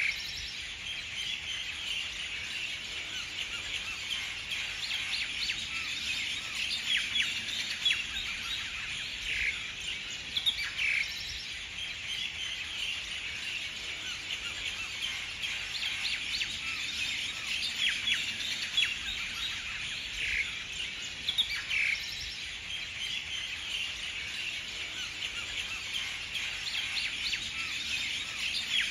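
Birds chirping and calling in a dense, continuous chorus of short high notes, with a few louder calls standing out now and then.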